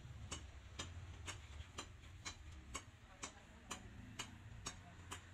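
Faint, even ticking, about two sharp ticks a second, over a low steady hum.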